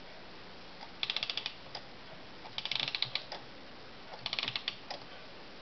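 Clockwork mechanism of a c.1870 Roullet and Decamps drinking-bear automaton ratcheting: three short bursts of rapid clicks, about a second and a half apart.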